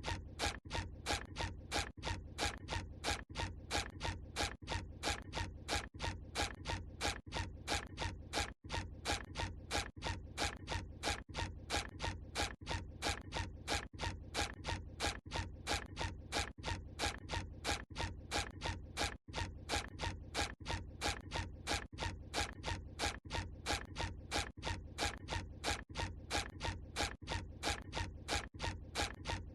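SpongeBob SquarePants cartoon walking sound effect: short footstep sounds repeating evenly, about two a second, with two brief dropouts.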